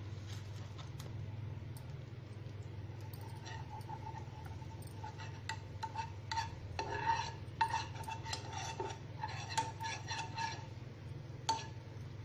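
Metal spoon scraping and clinking against a nonstick frying pan while spreading melting butter. The scraping starts about three seconds in and is busiest in the middle, with one last sharp tap near the end. A steady low hum runs underneath.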